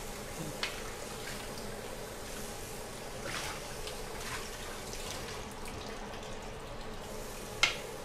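Kitchen tap running into a stainless steel sink while a frying pan is rinsed and scrubbed by hand under the stream, with a few light knocks.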